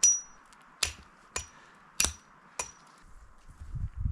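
Five sharp chopping strikes of a metal blade into a wooden pole, about one every 0.6 seconds, each with a brief high metallic ring. Low rustling and handling noise builds near the end.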